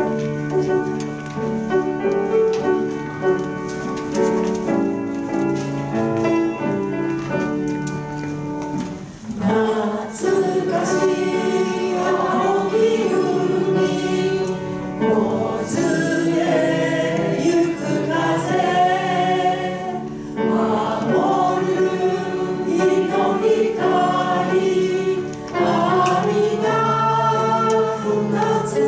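Piano playing an introduction of held chords, then about nine and a half seconds in a group of voices starts singing a slow Japanese camp song in Japanese over the piano accompaniment.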